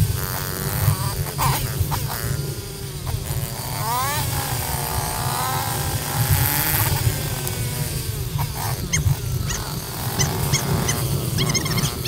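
Dirt bike engine running, its pitch rising about four seconds in and then wavering, over a steady low rumbling noise, with a few short clicks near the end.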